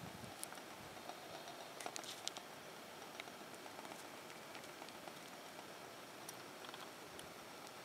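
Faint footsteps and gear rustle of a hiker climbing over rock: scattered light clicks and scrapes, a small cluster about two seconds in, over a steady low hiss.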